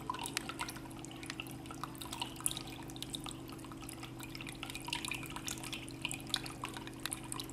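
Water from a bamboo fountain dripping and trickling into its basin as many small, irregular drops, over a low steady hum.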